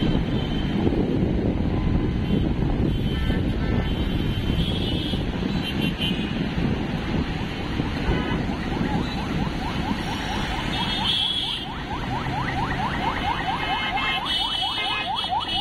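Steady engine and tyre rumble of busy road traffic heard from a moving bus. Short horn blasts come now and then. From about halfway, a rapidly repeating rising electronic chirp, several a second, runs alongside, like a car alarm.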